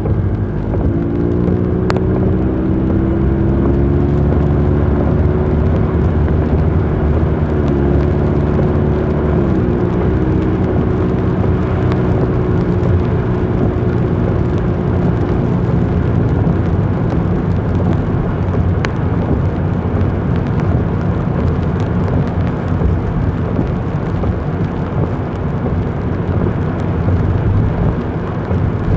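Car engine pulling away and accelerating, its pitch rising over the first couple of seconds, then holding with a brief dip about eight seconds in. After about sixteen seconds the engine tone fades and steady road and tyre noise remains.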